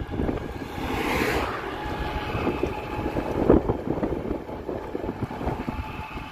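Wind buffeting the microphone: an irregular low rumble, with a short rush of hiss about a second in and a louder gust or knock a little past the middle.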